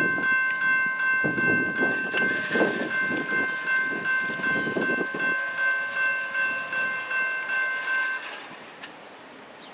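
Railroad grade-crossing warning bell ringing with rapid, evenly repeated strokes while the crossing gate arm lowers; it cuts off suddenly about eight seconds in, once the gate is down. A low noise lies under the bell for a few seconds in the first half.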